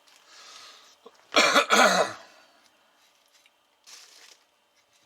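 A man coughing twice in quick succession, about a second and a half in.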